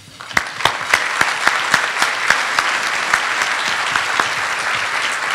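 Audience applauding, starting about a third of a second in, with a few single claps close to the microphone standing out at about three to four a second.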